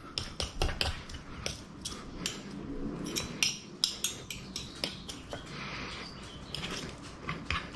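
Two metal forks clicking and scraping on a wooden cutting board as they shred boiled chicken, a quick irregular run of light clicks a few times a second.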